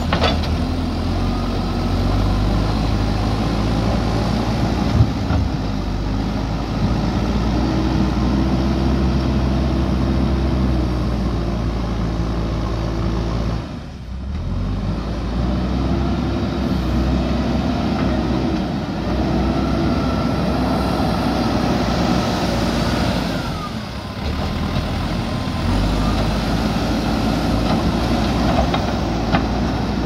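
JCB 3DX backhoe loader's diesel engine running steadily under load while the machine works soil, its pitch rising and falling. The sound dips briefly twice, and there are two short sharp knocks.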